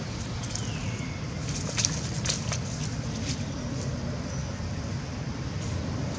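Outdoor ambience: a steady low rumble, with a few sharp crackles of dry leaves about two seconds in.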